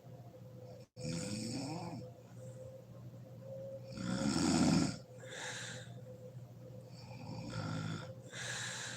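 A sleeping woman snoring heavily, a rasping snore roughly every three seconds, the loudest about four seconds in, with softer breaths between. The sound drops out completely for a moment just under a second in.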